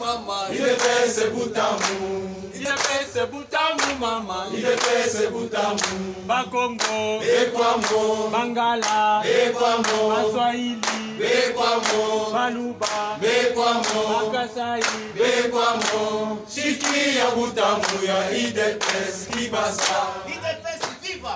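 A crowd singing together in unison, with rhythmic hand clapping.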